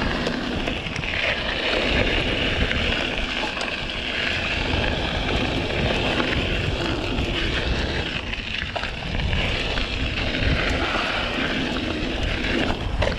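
Mountain bike rolling fast down a dirt trail: continuous tyre noise and rattle, with wind rumbling on the microphone.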